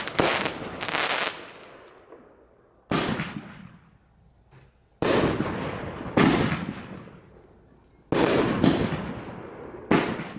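Consumer aerial fireworks bursting overhead: about ten sharp bangs, several close together in the first second and a half, then one or two every second or two, each trailing off in a fading rumble over a second or more.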